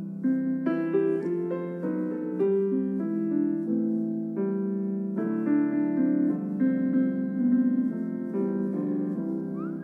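Solo piano music, single notes and chords struck one after another at an unhurried pace.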